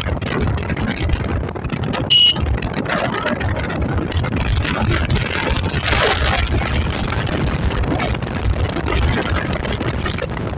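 Yamaha SR400 single-cylinder motorcycle engine running while riding, under wind buffeting the microphone. A short, high beep about two seconds in.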